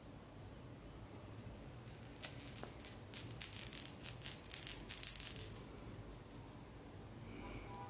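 Small plastic cat toy ball dangled on a string, rattling as it is shaken and swung, in a run of quick bursts that starts about two seconds in and stops about two seconds before the end.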